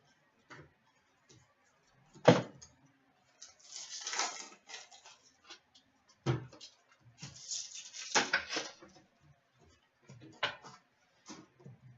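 Trading card packaging being opened and handled: two stretches of crinkling, tearing wrapper, with three sharp knocks of the box or packs set down on the table.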